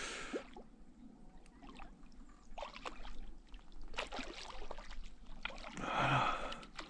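Water splashing and sloshing as a hooked carp thrashes at the surface and is scooped into a landing net, in small irregular splashes with a louder burst about six seconds in.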